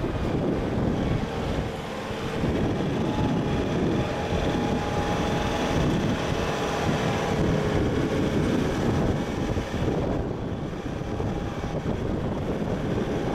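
A 4x4 driving along a sandy track, its engine a steady drone under a continuous rumble. Wind buffets the microphone throughout.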